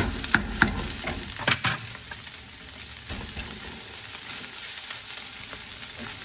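Fried rice sizzling in a non-stick frying pan while a spatula stirs and turns it. A few sharp taps of the spatula against the pan come in the first two seconds, then an even sizzle.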